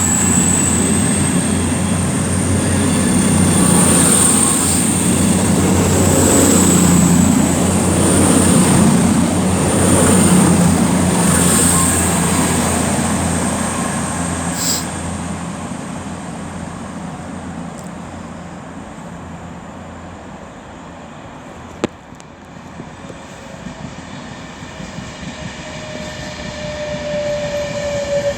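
CrossCountry Class 221/220 Voyager diesel multiple units running and pulling out, their underfloor diesel engines droning with a high whistle above. The sound fades away over the middle of the stretch. Near the end another train's whine grows louder as it approaches.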